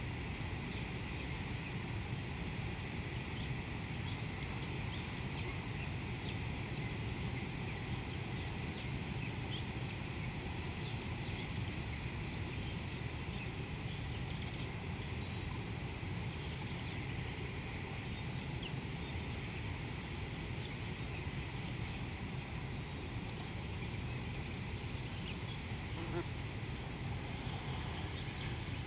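Outdoor waterside ambience: a steady low rumble and a continuous high, even buzz, with faint short chirps scattered through it.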